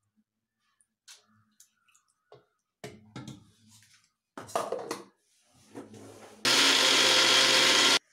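Soaked urad dal being scooped into a steel mixer-grinder jar with scattered clinks and scrapes of metal. Near the end an electric mixer grinder (mixie) runs loud and steady for about a second and a half, grinding the dal for vada batter, then cuts off suddenly.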